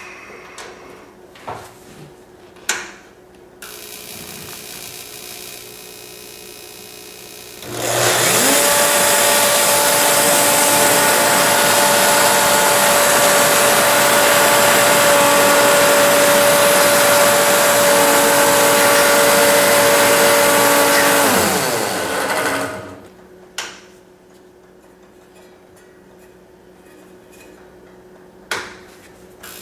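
Electric motor switched on about eight seconds in, spinning up quickly and running steadily with a whine for about fourteen seconds, then winding down. Handling clicks and knocks come before and after it.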